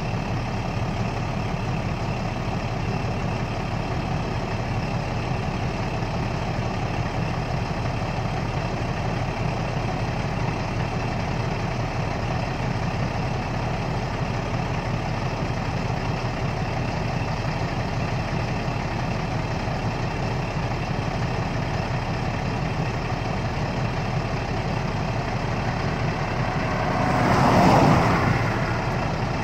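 A vehicle engine idling steadily with a low hum. Near the end a louder rushing swell rises and falls over about two seconds.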